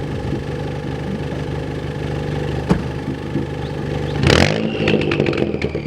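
Ford Fiesta ST's turbocharged engine, straight-piped with a catless downpipe and no muffler or resonator, idling steadily for about four seconds. It is then blipped once: the revs shoot up and fall back, with a string of pops and crackles from the exhaust and a high whine sliding slowly down behind them.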